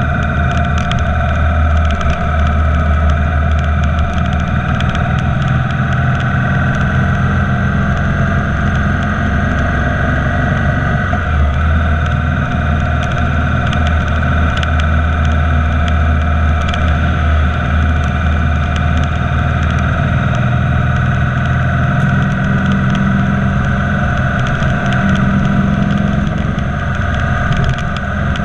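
Motorcycle engine running steadily at cruising speed through a road tunnel, with wind and road noise.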